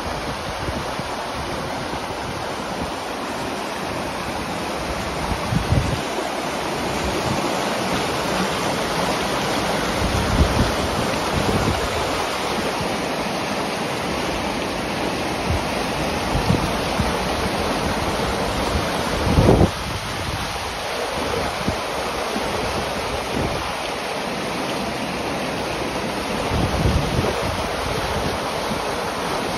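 River water rushing steadily over a low rocky ledge in white-water rapids. A few gusts of wind buffet the microphone, the strongest about two-thirds of the way through.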